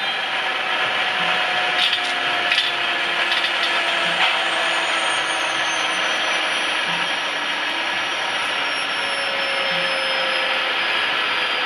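Model electric locomotive (Piko class 147) with a sound chip, running with a steady rushing noise under several thin electric whines that slowly fall in pitch.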